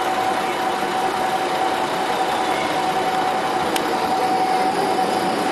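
Steady street traffic noise with a constant mid-pitched hum, and one sharp click a little under four seconds in.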